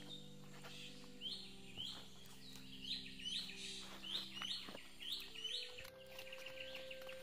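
A bird repeating a short, high chirp about twice a second, over soft background music with long held notes.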